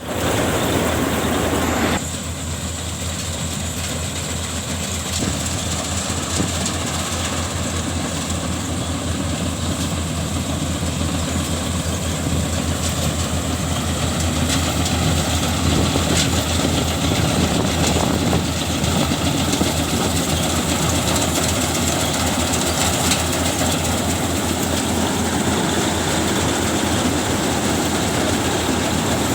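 Rice harvesting machine running steadily under power: a loud, continuous engine hum with mechanical noise, a little quieter after about two seconds.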